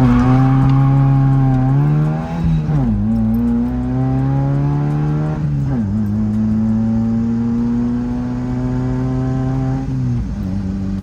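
1979 Fiat 124 Spider 2000's four-cylinder engine pulling through the gears. Its note climbs, drops at upshifts about three and six seconds in, then holds steady before easing off near the end.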